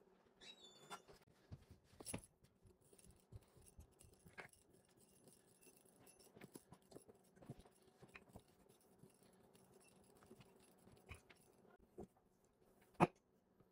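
Faint handling sounds of pastry being worked on a silicone baking mat: scattered small taps and clicks of fingers, dough and utensils over a low steady hum, with one sharper knock near the end.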